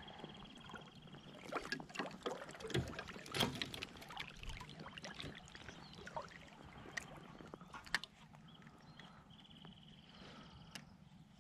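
Water splashing and trickling around a float tube, with scattered clicks and knocks, busiest in the first half and thinning out after about five seconds.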